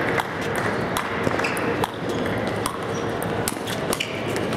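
Many sharp clicks and short ringing pings in quick irregular succession, over a steady hiss and a faint constant hum.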